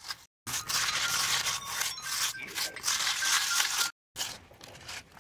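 Wet stone chips stirred by hand in a plastic bowl: a dense, gritty scraping and rattling that cuts off abruptly about four seconds in. A quieter, scattered clatter of chips follows.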